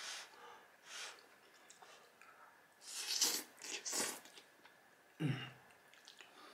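Close-up sounds of a person eating baked spaghetti: noodles slurped off a fork and chewed with the mouth near the microphone, in short separate bursts, the loudest slurp about three seconds in.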